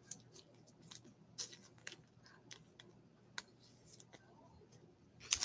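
Faint, scattered clicks and light ticks of small objects being handled. A louder rustle starts near the end.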